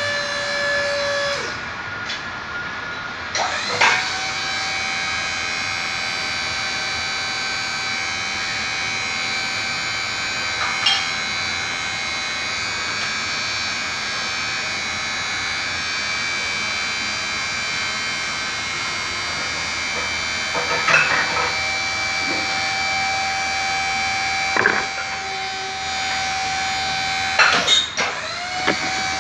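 Hydraulic power unit of a direct-push soil sampling rig running steadily while the rig pushes the sampler rods into the ground, with a higher whine over much of it. Metal clanks break in a few times, several in quick succession near the end.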